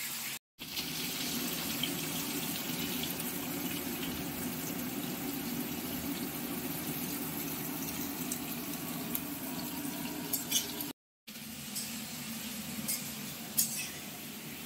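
Cut vegetables frying in hot oil in a kadai: a steady sizzle, broken by two short gaps, with a few light clicks near the end.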